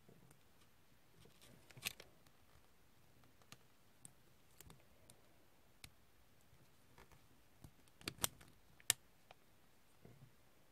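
Small plastic Transformers blind-bag figure being transformed by hand: faint, scattered clicks and snaps of its plastic parts, loudest about two seconds in and twice more, close together, near the end.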